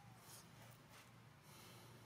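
Near silence: faint outdoor background with a few soft, brief hissy rustles.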